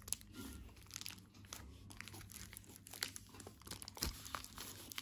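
Gold foil chocolate-bar wrapper crinkling and crackling in irregular bursts as fingers unfold and peel it open.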